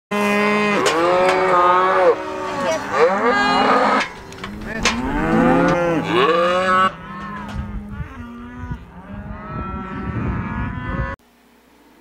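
A herd of penned cattle bawling and mooing, many long calls overlapping one another; the sound cuts off abruptly about eleven seconds in.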